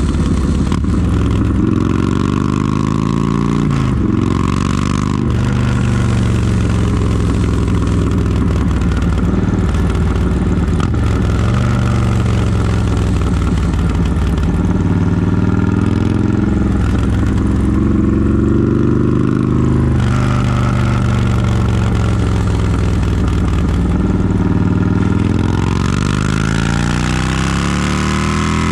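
Harley-Davidson touring motorcycle's V-twin engine running on the road, its revs rising and falling again and again in long swells as the rider accelerates and rolls off.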